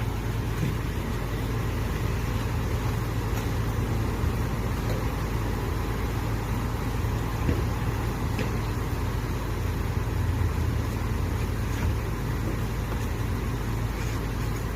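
Steady rushing noise of a car wash over a low, even hum, with a few faint clicks.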